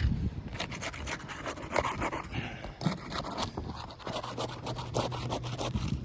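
A roof snake shingle-removal tool scraping and rubbing against gritty asphalt shingles as it is worked under a shingle to feel where the shingle ends. The strokes are irregular, with sharper clicks mixed in.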